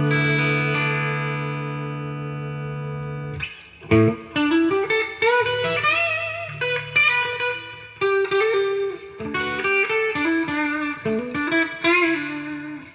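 Ibanez RG350EX electric guitar on its bridge humbucker, played through a Roland Blues Cube BC-60 amp's clean channel with built-in reverb. A chord rings out for about three and a half seconds, then single-note lead picking with string bends follows.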